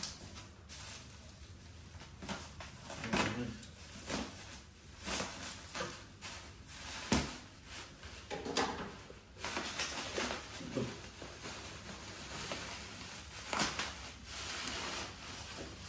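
Plastic wrap and bubble wrap crinkling and rustling as a steel motorcycle box bracket is cut free and unwrapped, with scissor snips and irregular light knocks from handling. A sharp click comes about seven seconds in, as the scissors are set down on the table.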